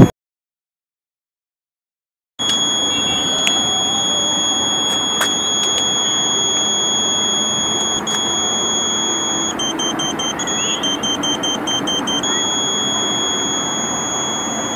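After a couple of seconds of silence, a steady high-pitched electronic tone starts over a light hiss. Partway through it dips slightly in pitch and turns into rapid beeping for about two seconds, then goes steady again, typical of a satellite pointing tone changing as the dish is aimed.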